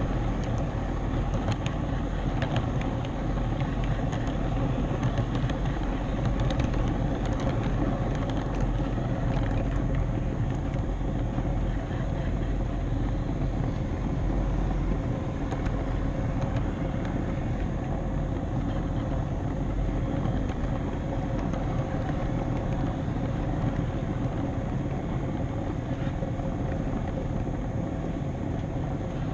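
HO scale model train rolling along the track, heard from the camera car it carries: a steady running rumble of wheels and motor on the rails, with a few light clicks.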